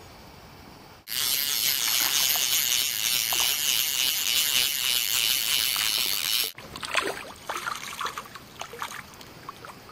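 Rushing stream water, a loud even hiss that cuts in abruptly about a second in and cuts off about five seconds later. It is followed by a run of irregular clicks and small splashes.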